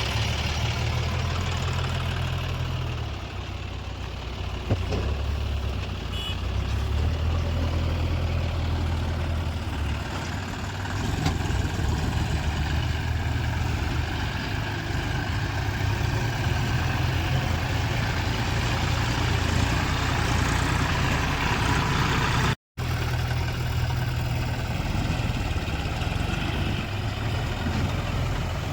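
Heavy diesel machinery running steadily, its low engine note rising and falling with load, with a brief dropout about two-thirds of the way through.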